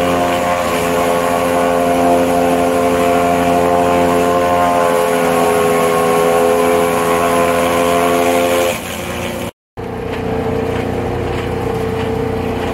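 Chaff cutter running steadily with a loud, even hum as green maize stalks are fed in, chopped and blown out. The sound drops a little about nine seconds in, breaks off for an instant, then carries on slightly quieter.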